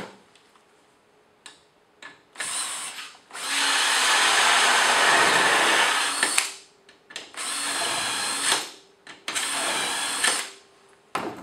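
Cordless drill driving a Blum Ecodrill hinge-boring jig, its bits cutting hinge holes in melamine-faced chipboard. One short burst, then a steady run of about three seconds, then two shorter runs of about a second each.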